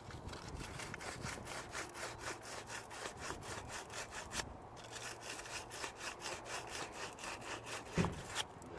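Sandpaper scrubbing back and forth on car battery terminals, in fast even strokes about four a second, with a brief pause about halfway. A knock sounds near the end.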